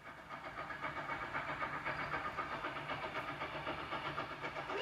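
Milwaukee Road 261, a 4-8-4 Northern-type steam locomotive, running toward the listener with its exhaust chuffing in a quick, even rhythm.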